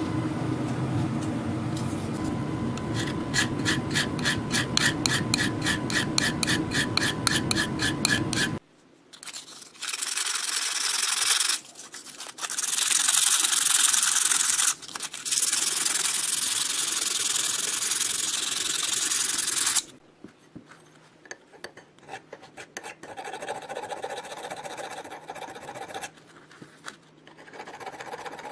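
Workshop work on old metal parts. A machine runs with a fast even beat for about eight seconds and then stops. Loud abrasive rubbing follows in several stretches for about ten seconds, then quieter scraping.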